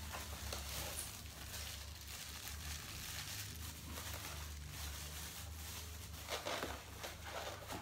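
Clear plastic packaging crinkling and rustling as it is pulled open and handled, with louder crinkles about six seconds in.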